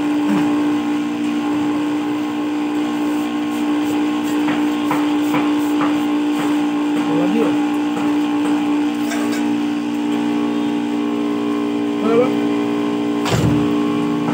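Vehicle engine idling with a steady hum. A few light clicks and a sharper knock come near the end.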